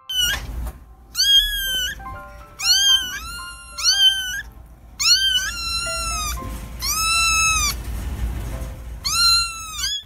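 Kittens meowing, about eight high, thin cries in quick succession, each rising then falling in pitch.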